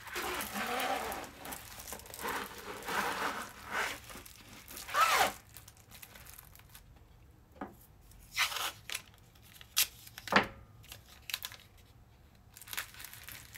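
Diamond-painting canvas and its plastic cover sheet rustling and crinkling as they are handled and laid flat, with a louder crinkle about five seconds in. Then come a few short, separate tearing sounds of blue painter's tape as the canvas edge is taped down.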